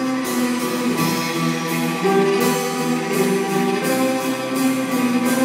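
Live band of guitars, cello, keyboard and drums playing a song, guitars to the fore over held chords. The recording is of poor sound quality.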